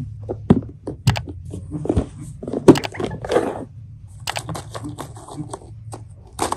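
Rose-ringed parakeet pecking and crunching biscuit crumbs with its beak: a quick, irregular string of sharp little clicks and crunches.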